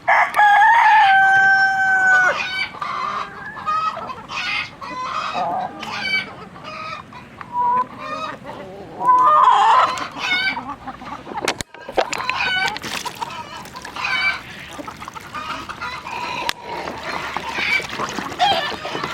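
Chickens clucking. A rooster crows once at the start, one long call of about two seconds.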